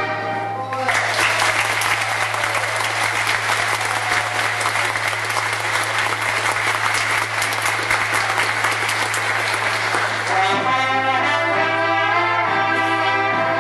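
Audience applauding for about ten seconds as a tune ends. Near the end a folk band with accordions and trumpets starts playing again.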